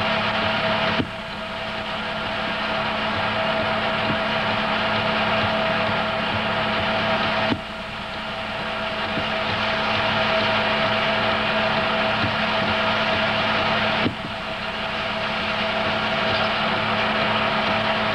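Home-movie film projector running: a steady mechanical whir with a constant hum, broken three times by a click, each followed by a sudden dip in level that slowly swells back.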